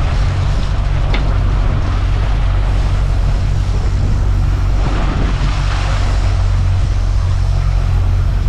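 Motorboat engine running steadily at trolling speed, a low drone under wind and water noise.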